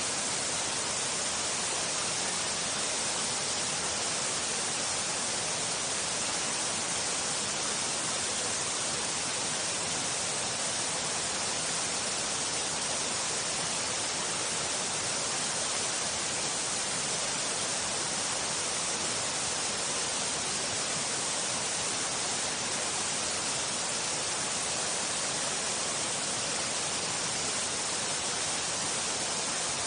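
Waterfall pouring steadily: an even, unchanging hiss of falling water, brightest in the upper range.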